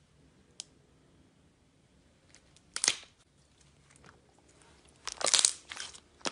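Clear glitter slime crackling and popping as it is pressed and squeezed by hand. A short crackle comes about three seconds in, then a louder run of crackles near the end.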